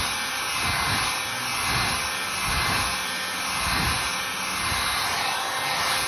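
Heat gun on its low setting blowing hot air onto damp seatbelt webbing to dry it. The air rushes steadily, swelling and easing a little in loudness.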